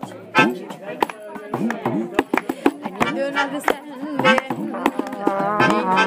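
Informal acoustic jam: hand drums and hand claps striking an uneven beat, with voices singing and talking over them.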